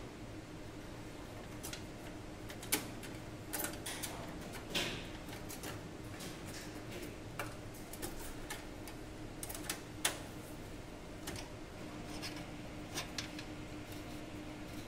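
Irregular metallic clicks and taps as a stamped-steel motherboard I/O shield is pressed and snapped into the rear opening of a Lenovo ThinkCentre steel PC case. Two sharper clicks stand out, about three seconds in and again about ten seconds in.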